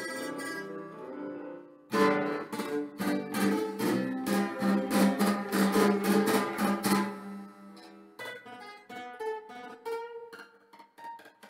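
A held keyboard chord fades out, then a nylon-string acoustic guitar is strummed in loud, rapid chords for about five seconds. It ends with a few softer plucked single notes.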